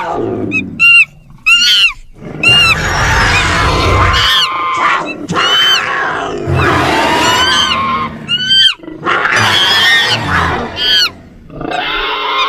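Screeches and roars of ape-like creatures, a designed creature sound effect: many short, shrill cries that rise and fall in pitch, over rough, low growling.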